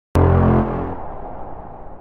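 A single deep musical hit that starts suddenly with a click and fades away over about two seconds: the opening sting of an outro title.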